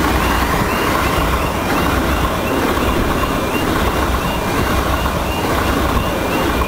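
Class 365 electric multiple unit passing close by at speed: a steady loud rush of wheels on rail and air, over a low rumble.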